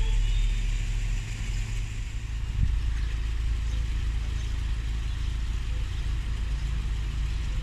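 Steady low rumble of an idling diesel rail vehicle, with a single knock about two and a half seconds in.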